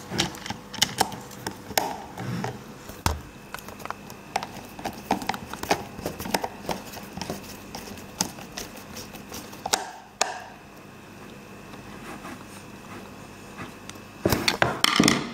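Hand screwdriver turning a screw into the mini chainsaw's plastic guard: irregular clicks and scrapes of the tool and plastic parts being handled, easing off about ten seconds in, then a louder burst of sound near the end.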